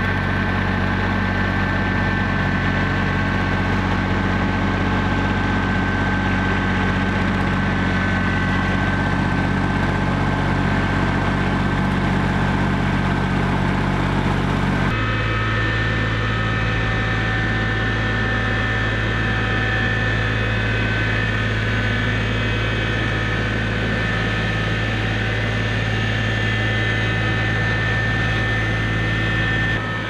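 New Holland compact tractor engine running steadily while towing a sawmill. The engine note changes abruptly about halfway through.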